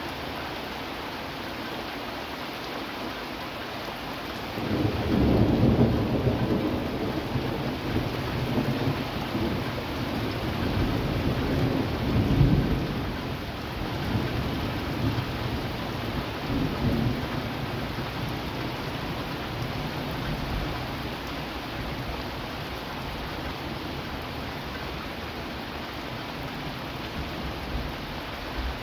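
Steady heavy rain. About five seconds in, a long roll of thunder breaks in suddenly, swells again a few seconds later, and rumbles away over about fifteen seconds.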